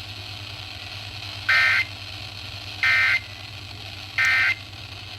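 Three short two-tone digital data bursts from an Emergency Alert System weather radio broadcast, a little over a second apart, over a low steady hum. This is the SAME end-of-message signal that closes a severe thunderstorm warning.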